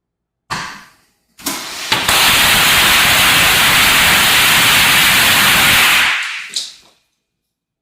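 Fireworks going off: a sudden bang, then a second blast about a second later that swells into a loud, steady hissing rush for about four seconds before it fades out.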